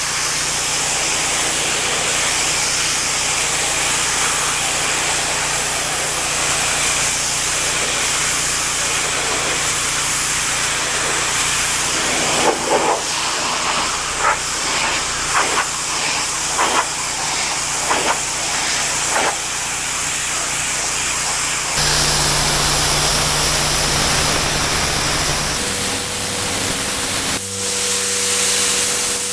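Pressure washer jet spraying water onto a patio: a steady hiss over the low hum of the machine, with a run of short sharper bursts in the middle and abrupt changes in tone twice near the end.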